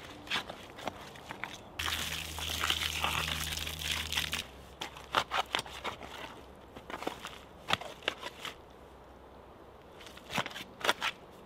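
Spade chopping and stabbing into a pile of dry, crumbly clay soil, breaking it up: a run of sharp crunching strikes. About two seconds in, a steady rushing noise with a low hum runs for about two and a half seconds.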